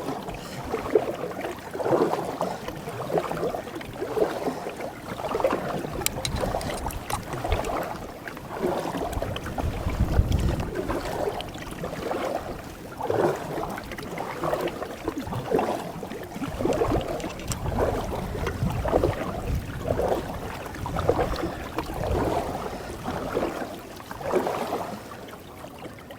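Canoe paddle strokes dipping and pulling through the river water in a steady rhythm of about one stroke a second.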